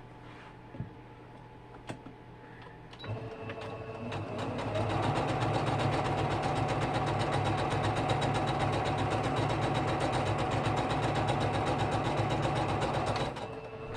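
Electric sewing machine stitching: it starts about three seconds in, speeds up over a second or two, runs at a steady fast stitch, and stops shortly before the end. A couple of light clicks come before it starts.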